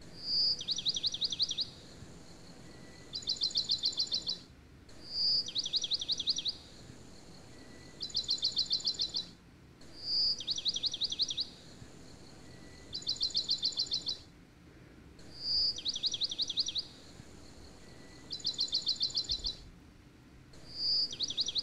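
Looped recording of bird chirps: a short high note, then a quick trill of about nine falling chirps and a second trill a moment later, the same pattern repeating about every five seconds with a brief dead-silent gap between loops.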